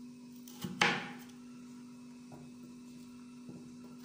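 Kitchen knife knocking on the cutting surface while cutting taro: two quick sharp knocks about a second in, the second the loudest, then a few faint taps. A steady hum runs underneath.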